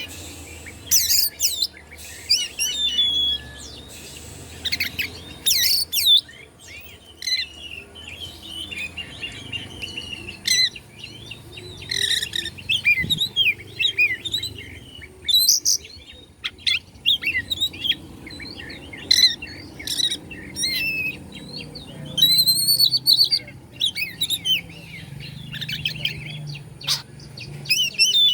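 Oriental magpie-robin (kacer) singing a varied song of quick whistled and chattering phrases, with sharp high notes in bursts and short pauses between them.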